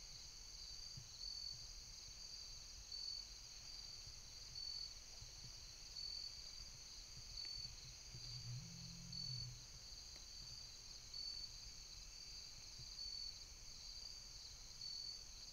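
Faint evening insect chorus, crickets and the like: a steady high-pitched trill with a pulsing note repeating about every one and a half seconds. A brief low hum comes in about eight seconds in.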